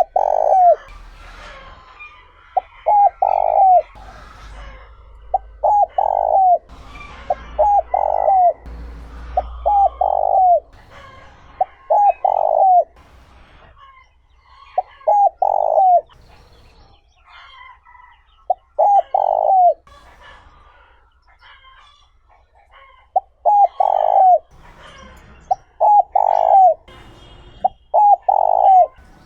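Spotted dove cooing: a tame decoy male's territorial call, repeated phrases of a couple of short notes ending in a longer falling note, roughly one every two to three seconds, with a longer pause in the middle. Faint chirps of other small birds sound between the phrases.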